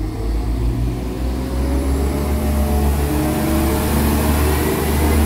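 NI Railways Class 4000 diesel multiple unit pulling away from the platform, its engine note rising steadily as it picks up speed.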